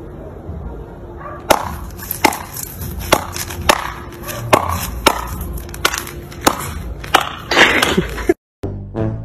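Badminton rackets striking a shuttlecock in a fast outdoor rally: about a dozen sharp hits, roughly one every two-thirds of a second. The hits stop abruptly near the end, and plucked-string comedy music starts.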